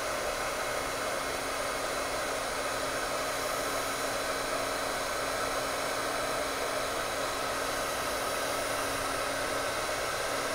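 Hot-air heat gun blowing steadily to shrink clear heat-shrink tubing over soldered wire leads: an even whoosh of air with a faint steady hum underneath.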